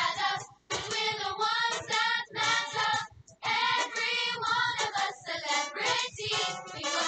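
A recorded song of young voices singing together with music, the phrases broken by short pauses about half a second and three seconds in.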